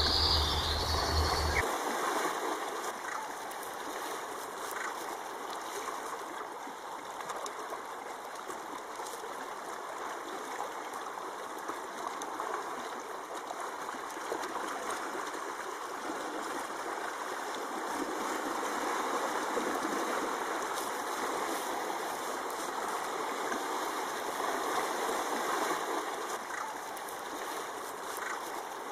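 Steady rushing and trickling of running water, like a flowing stream, with slow swells in level; a recorded water sound in the installation's soundscape.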